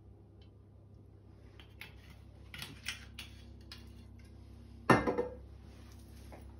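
A glass olive-oil bottle set down on a hard countertop with one sharp clink about five seconds in, after a few light clicks and taps of handling.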